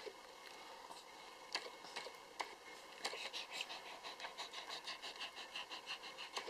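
Faint sounds from a nursing Lhasa Apso mother and her newborn puppies: a few scattered soft clicks, then from about three seconds in a quick, soft, even rhythm of about five beats a second.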